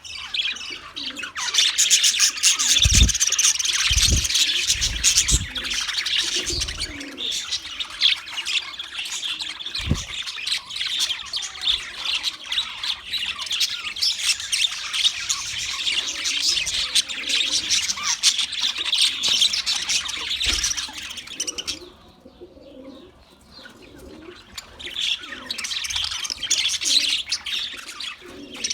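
Budgerigars chattering and chirping continuously in a dense, busy warble, falling quiet for a couple of seconds about three quarters of the way through before resuming. A few low thumps sound in the first ten seconds.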